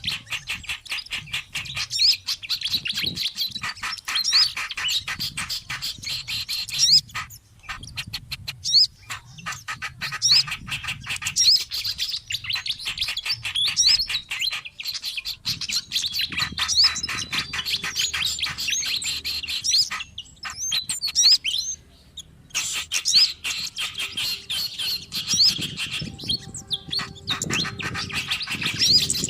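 Bird-lure recording of small songbirds calling: rapid, busy chirping and twittering, with brief pauses about seven and twenty seconds in.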